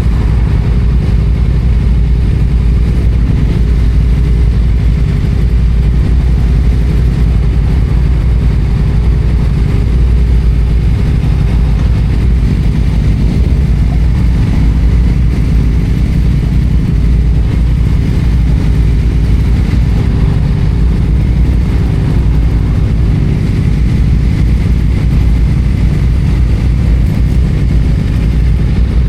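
Yamaha FZ-07's parallel-twin engine running at a fairly steady pace under the rider, with no big revs or gear changes.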